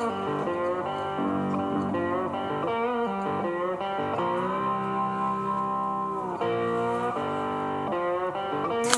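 Background music: a bluesy guitar tune with slide guitar, with a long held chord in the middle. A short burst of hiss right at the end.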